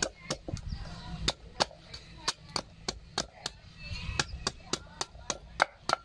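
Rapid chopping of a heavy cleaver cutting the husk off a coconut held on a wooden chopping block, sharp strikes coming about three times a second.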